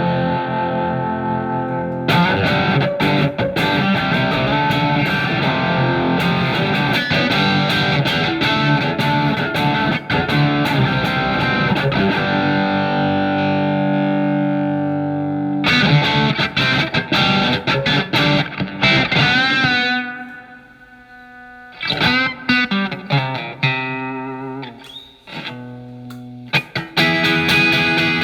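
Telecaster with single-coil pickups played through the Marshall MG15FX amplifier's OD2 overdrive channel: distorted electric guitar chords and single notes. About halfway through a held chord rings out and fades, then new playing starts; a quieter, sparser stretch of notes follows before fuller playing returns near the end.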